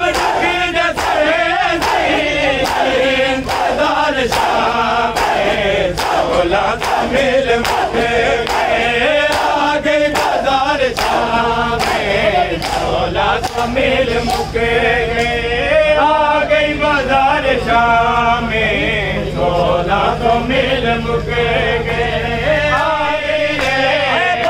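A group of men chanting a nauha, a mourning lament, in unison. Under it comes the rhythmic slapping of many bare-chested men beating their chests in matam, about two beats a second.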